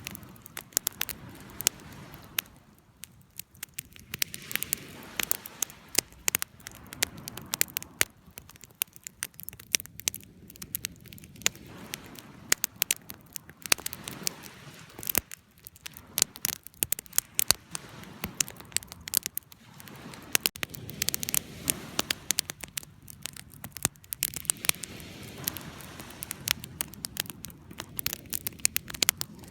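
Wood fire burning: dense, irregular crackling with sharp pops over a soft low rumble of flames.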